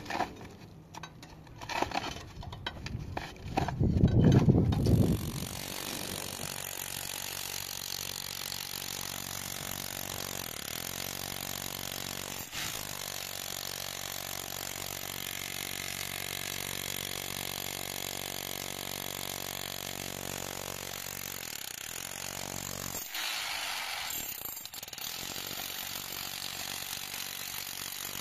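Electric demolition hammer chiselling into a concrete slab, starting about five seconds in and then running steadily with rapid, even blows.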